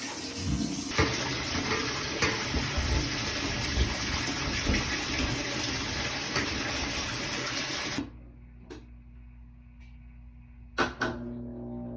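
Water rushing into a washing machine as it fills for a test cycle, a steady hiss that stops abruptly about eight seconds in. A quieter low steady hum follows, with two short knocks.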